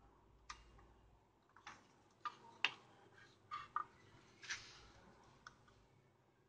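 Faint, irregular clicks and taps, about eight in all, from a soldering iron and a spool of solder wire being handled against a monitor's power-supply circuit board while a capacitor's leads are soldered.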